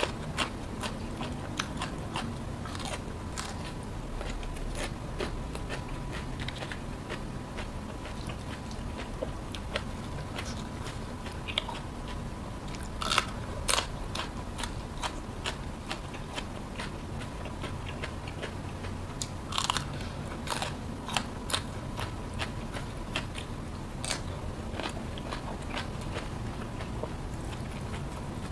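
Close-miked chewing and crunching of raw vegetables and chili dipped in sambal, with wet mouth sounds and scattered sharp crunches. The crunches come in louder clusters about halfway through and again about two-thirds of the way through.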